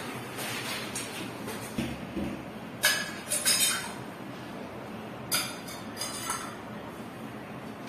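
Hard clinks and clicks of small fittings knocking against a ceramic toilet bowl as the seat-hinge fixings are worked into place. One sharp clink comes about three seconds in, with a quick cluster right after it, and another group comes around five to six and a half seconds.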